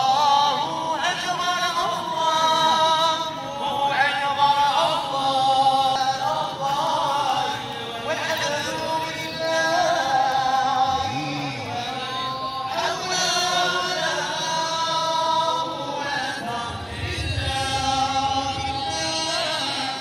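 Several voices singing a melodic chant together in chorus.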